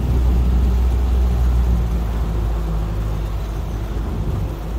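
A small fishing launch's outboard motor running steadily at full throttle, a constant low engine hum under a rushing hiss of wind and water.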